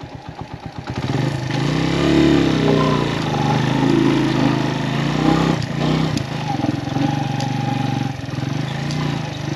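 Suzuki GS150 motorcycle's single-cylinder engine running with a fast idle pulse, then revved up about a second in, its pitch rising and falling several times.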